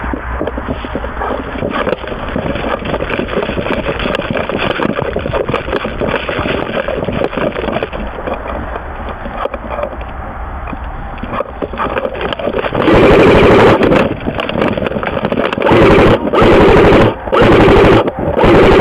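Airsoft electric gun firing full-auto bursts about a second long, close and loud: one burst, a pause, then several more in quick succession near the end. Before the bursts, a steady dense noise.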